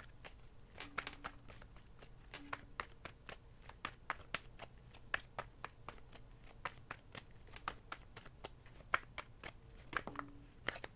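Deck of tarot cards being shuffled by hand: a faint, steady run of quick card clicks and flicks, several a second, as the reader shuffles to draw another card.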